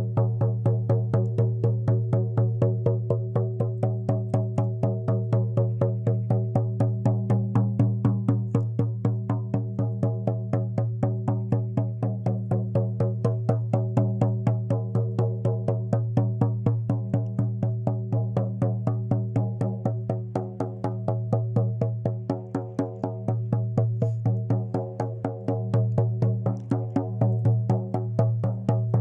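Shaman's frame drum (buben) beaten in a steady, even rhythm, each stroke ringing with a low hum; the beat grows a little softer and less even in the later part.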